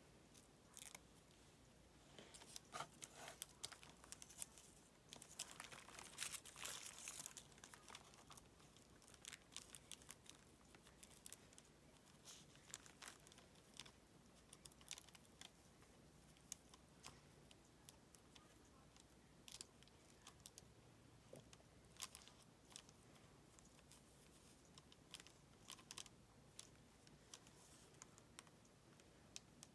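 Faint rustling and crinkling of paper and fabric scraps being handled and pressed down, with scattered small ticks and taps. It is busiest about five to eight seconds in.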